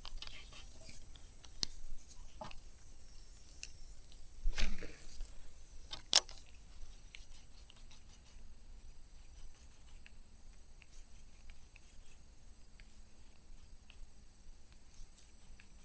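Spinning rod and reel being cast: a brief swish about four and a half seconds in and a sharp click about a second and a half later, with a few faint handling clicks before, then only faint background.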